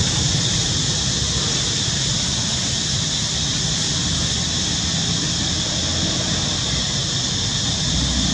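Steady outdoor background noise: a low rumble with a constant high-pitched drone above it, with no distinct animal calls standing out.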